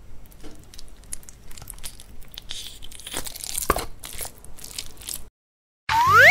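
Blue slime squeezed and kneaded in a hand, giving irregular sticky clicks and crackles. Near the end a loud rising whistle-like sound effect plays.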